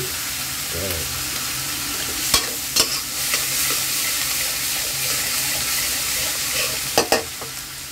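Red chili paste sizzling in hot oil in an aluminium wok while a metal spatula stirs and scrapes it. Sharp clinks of the spatula against the wok come twice about two and a half seconds in, and again twice about seven seconds in.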